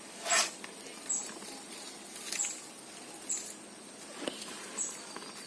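Sliced onions being dropped by hand into a bowl of spiced flour: five short soft rustles, roughly one a second.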